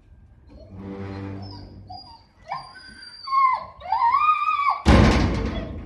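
A group of dogs whining and howling excitedly in high, gliding cries, greeting their returning owner. A low steady hum comes first, and near the end a loud harsh sound lasting about a second.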